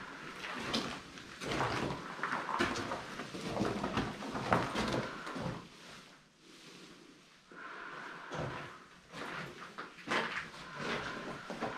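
Irregular knocks and scrapes of someone moving about and handling things in a small room.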